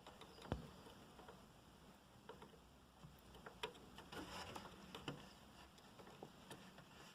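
Faint, scattered clicks and light taps of small parts being handled while an M.2 SSD is fitted to a motherboard, with a single sharper knock about half a second in.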